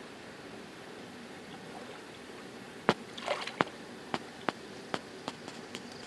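Steady hiss. About three seconds in comes a sharp click, then a brief splash of water and a string of about seven sharp clicks over the next two seconds.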